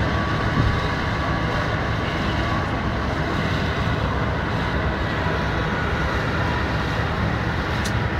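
Strong wind from a nearby tornado blowing hard over a phone's microphone: a loud, steady, rushing noise with no letup.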